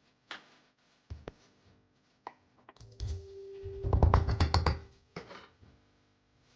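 A few sharp knocks, then a busy clatter of hard objects knocking together about three seconds in, with a brief ringing tone, typical of handling utensils and dishes.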